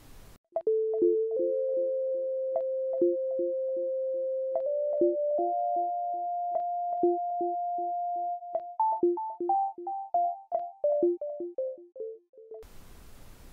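Short electronic channel jingle: a held synthesizer note that steps up in pitch over a steady pulse of short keyboard notes, then a run of short notes stepping down before it stops.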